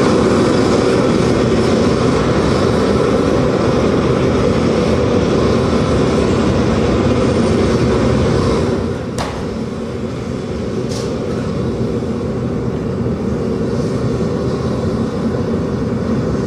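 Dense, steady rumbling noise drone from the dance piece's soundtrack, train-like in character, dropping somewhat in level about nine seconds in. Two sharp knocks come shortly after the drop.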